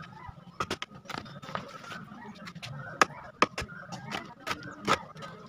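Old upholstery fabric being stripped off a wooden sofa frame, with about a dozen sharp, irregular clicks and snaps as it is pulled loose.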